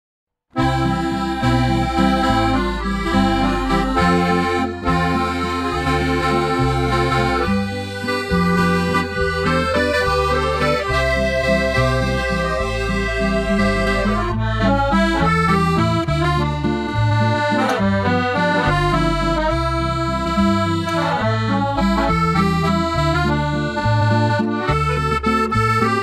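Accordion music playing a tune over low bass notes, starting about half a second in after a brief silence.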